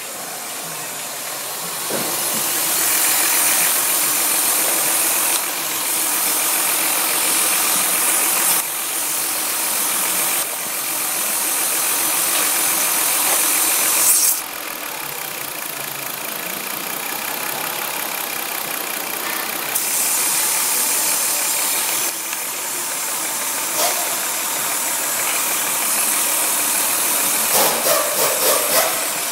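Car engine running with a large vacuum leak, a vacuum hose that gets sucked in and leaks unmetered air only while the engine runs. The sound is full of hiss and steps louder and quieter several times as the engine speed is raised and lowered, dropping sharply about fourteen seconds in.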